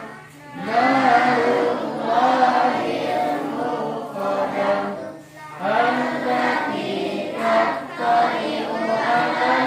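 A group of voices singing together in unison, a man's voice over a microphone leading the children, in melodic phrases with a short break about five seconds in.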